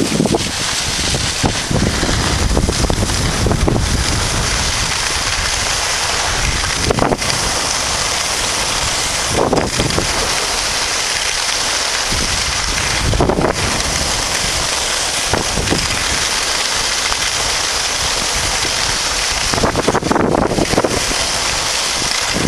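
Wind buffeting the camera's microphone over the steady hiss of skis sliding on packed snow while the camera operator skis downhill, with a few short louder scrapes as the skis turn.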